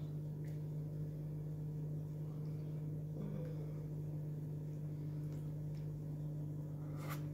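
A steady low hum, with faint mouth and chewing sounds and a few soft clicks as a sandwich is bitten into and eaten.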